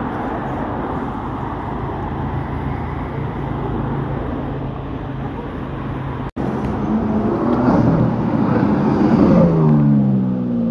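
Street traffic noise, then, after a short break about six seconds in, a car's engine grows louder and passes by. Its pitch falls near the end.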